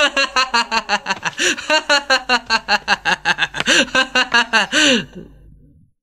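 A man laughing in a long run of rapid "ha-ha-ha" bursts, about six a second, that stops about five seconds in.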